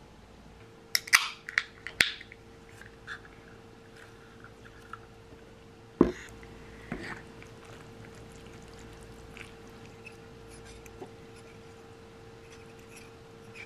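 Eating at a table: a quick cluster of clicks and clinks about a second in, a sharp knock about six seconds in, then faint ticks of a metal fork twirling linguine in a stone-coated frying pan. A faint steady hum runs underneath.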